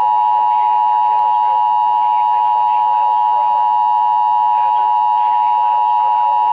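Emergency Alert System attention tone on a NOAA Weather Radio broadcast, announcing a severe thunderstorm warning: a loud, steady electronic tone of several pitches sounding together.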